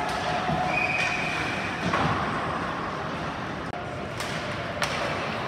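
Ice hockey rink during play: a steady wash of arena and skating noise, with a few sharp clacks of sticks and puck, the loudest about two seconds in and two more near the end, and players calling out.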